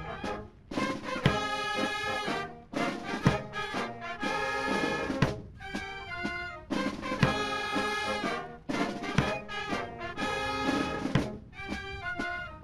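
Brass music with drum strokes, played in phrases with short breaks between them.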